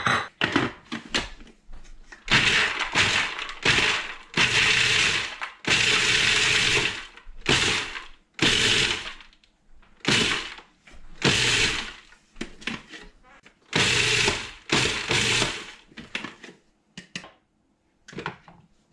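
Food processor pulsed again and again, chopping walnuts with onion and garlic: many short on-off bursts of the motor and blade, a few lasting a second or so, then it stops near the end.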